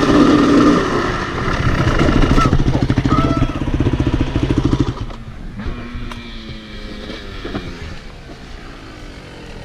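Kawasaki 250 KX dirt bike engine running as the bike slows down, then dropping to a quieter idle about five seconds in as it comes to a stop.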